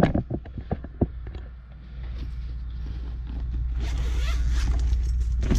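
Zipper pulled open on a fabric DeWalt tool bag, with a long rasping run near the end. A few clicks and knocks of the bag being handled come first, over a low steady rumble.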